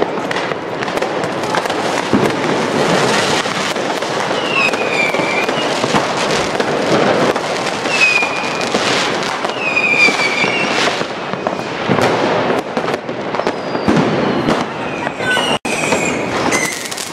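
New Year's Eve fireworks: a dense, unbroken barrage of firecracker and rocket bangs, loud throughout. Several whistling rockets rise through it with falling whistles.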